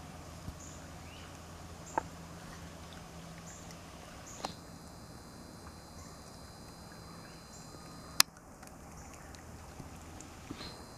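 Faint outdoor background with a low steady hum and a few sharp clicks. A thin high whine starts with one click about four seconds in and stops with a louder click near the end, as the camera zooms in.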